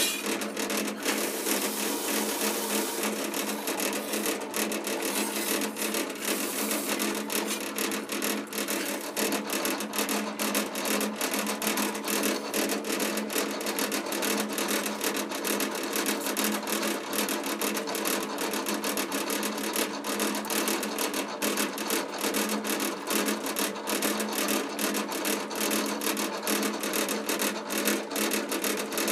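Drill press motor running with a steady hum. For the first few seconds a steel carpenter's square is pressed against the spinning sanding disc with a rasping hiss. After that a razor blade scrapes rust spots off the square in quick, repeated strokes.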